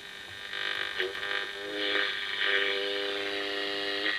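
A simple one-coil direct receiver tuned with a ferrite-rod long-wave coil hisses from its loudspeaker as the tuning capacitor is turned. About two seconds in, a steady tone of several pitches joins the hiss. It is interference, not a radio station, which the owner suspects comes from a nearby solar panel regulator.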